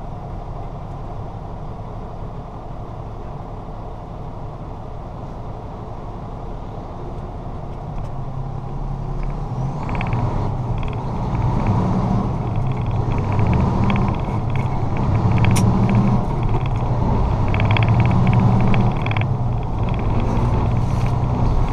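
Diesel engine of a semi tractor-trailer heard from inside the cab, idling at first, then pulling away and running louder from about ten seconds in as the truck gets under way.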